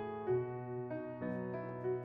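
Background piano music: a gentle melody over sustained chords, changing notes about every half second.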